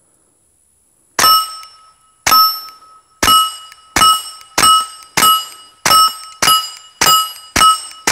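KelTec P17 .22 pistol fired through an OSS Rad 22 suppressor: about ten shots, starting about a second in and coming a little faster as they go. Each is a sharp crack followed by the bright ring of a struck steel target.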